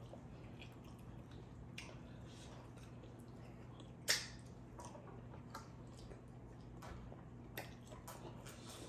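Quiet mouth and hand eating sounds from people eating soft amala and soup with their fingers: soft wet smacks and small squishy clicks, with one sharper click about four seconds in, over a low steady hum.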